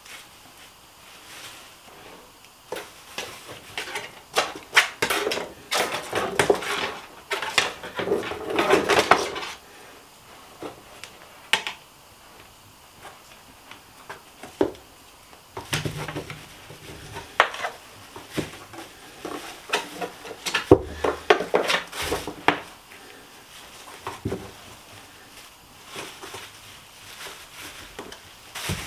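A knife scraping along a whole river fish, resting on a plastic bag, in quick rasping strokes. Later come scattered clicks and crinkling as the fish and a length of wire are handled.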